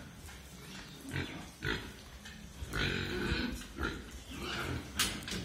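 Pigs grunting during mating as a boar mounts a sow: a few short grunts, with a longer stretch of grunting about three seconds in.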